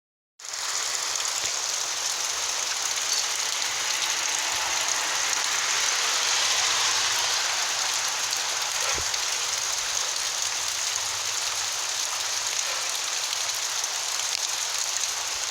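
Hail pelting down and striking the ground and surfaces in a steady, dense hiss of small hits, starting suddenly about half a second in. There is one duller knock about nine seconds in.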